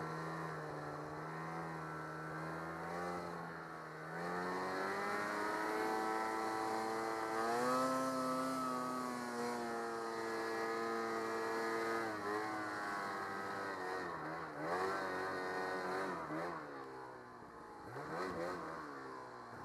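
Snowmobile engine running under throttle. Its pitch rises about four seconds in and holds high, then drops and climbs again in quick rev changes near the end.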